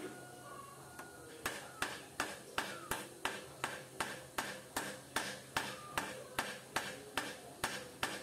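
Club hammer striking the new top steering-head bearing cone (race) of a motorcycle, driving it down into the headstock: steady, evenly spaced metallic blows, about two or three a second, beginning about a second and a half in, each with a short ring.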